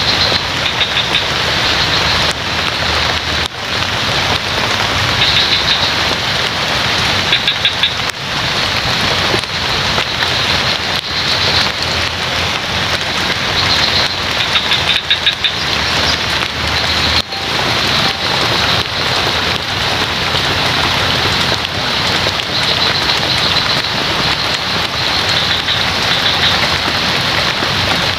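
Steady heavy rain falling on leaves. Short, high-pitched pulsed trills recur every few seconds over it.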